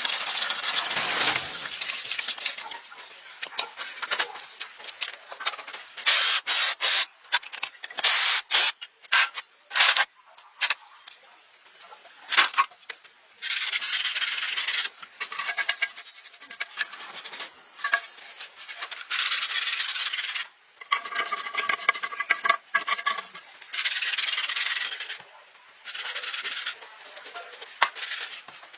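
Repeated rubbing and scraping strokes, some short and sharp, others in steady stretches of a second or two, like something being scrubbed or rasped by hand.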